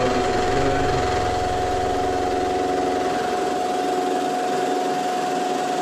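Bridgeport EZ Trax CNC mill running, its spindle giving a steady whine as a 3/4-inch four-flute high-speed-steel end mill interpolates a combustion chamber in an air-cooled VW cylinder head. A lower rumble under the whine fades out about two-thirds of the way through.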